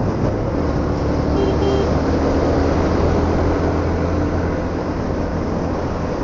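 Motorcycle engine running steadily while riding, with rushing wind noise over a helmet-mounted action camera's microphone. A brief high beep sounds about a second and a half in.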